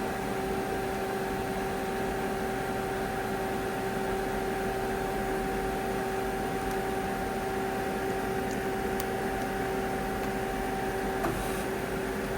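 Doosan Puma 2600Y CNC lathe running with a steady hum and a constant two-note whine, with a brief small click about eleven seconds in.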